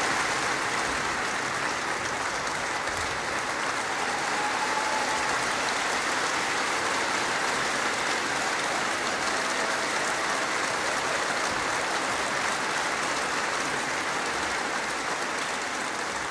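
Large audience applauding steadily in a concert hall, a long ovation that thins slightly near the end.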